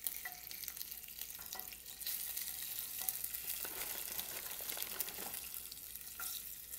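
Hot garlic-seasoned oil sizzling in a skillet as frozen chicken pot stickers are laid in flat side down, with a steady hiss and scattered crackles and spits of oil.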